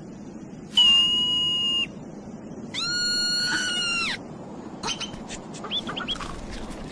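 Marmot giving two long, high whistling screams of about a second each, the second falling in pitch at its end, followed by a few short chirps and clicks.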